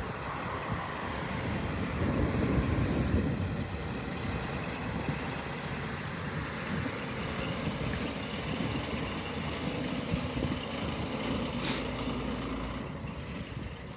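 Scania R420 truck's inline-six diesel engine running as the truck drives slowly past at close range, with wind buffeting the microphone. It eases off a little near the end as the truck moves away.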